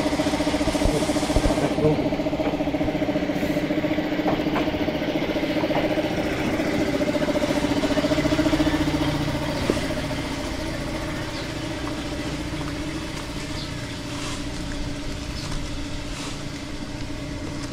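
An engine running steadily at a constant pitch. It drops to a lower level about nine seconds in.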